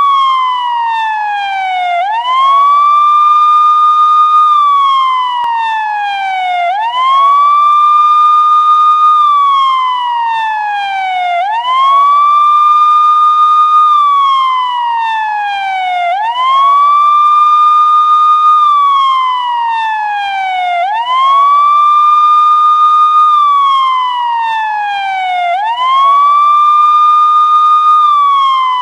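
Police siren sounding a slow wail. Each cycle rises quickly to a high tone, holds it for about a second and a half, then slides slowly back down, repeating about every five seconds at a steady loudness.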